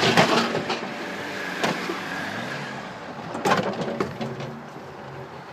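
A car's engine running, with several loud knocks and bangs: a cluster near the start, one at about a second and a half, and another cluster about three and a half seconds in.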